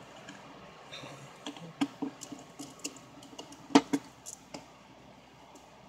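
Small sharp clicks and taps of a precision screwdriver and tiny screws against a smartphone's midframe, as screws go back into the phone. There is a scattered run of about a dozen clicks in the middle seconds, the loudest one about four seconds in.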